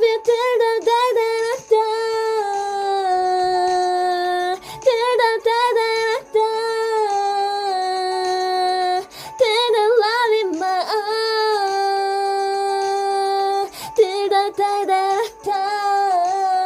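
A solo singing voice holding long notes joined by quick wavering runs, with short breaks for breath. No backing instruments are heard.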